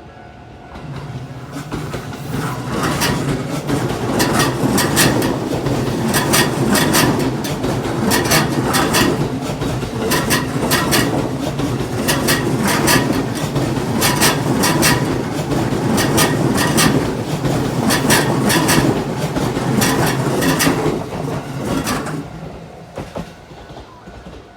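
Electric commuter train passing over a level crossing: steady rumble of wheels and motors with sharp wheel clacks over the rail joints, coming in regular groups about every two seconds, swelling in about a second in and fading away near the end.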